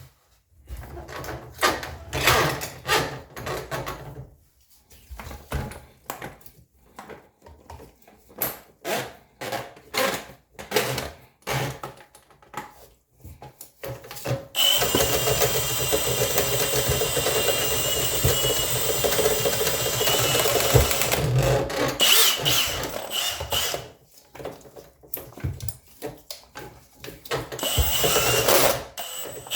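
Irregular knocking and clattering of tools on plumbing for the first half, then a small power-tool motor running steadily for about ten seconds with a faint whine, stopping, and starting again near the end.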